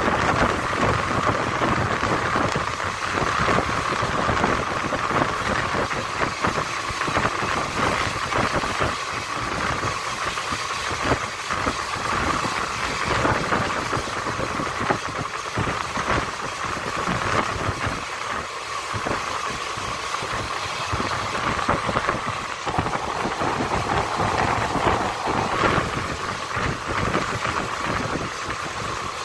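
Express train coach running at speed: a steady rush of wheels on rails and air past the open door, with irregular clacks and knocks from the running gear.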